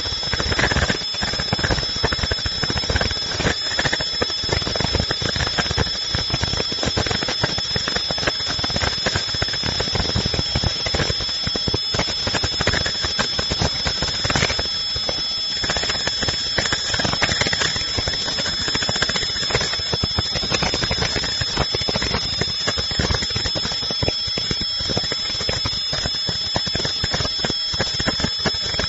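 Industrial machine running steadily: a dense, rapid mechanical clatter under two steady high-pitched whining tones.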